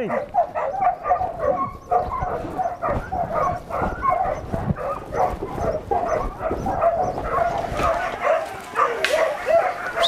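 A dog yipping and whining over and over, several short high calls a second without a break.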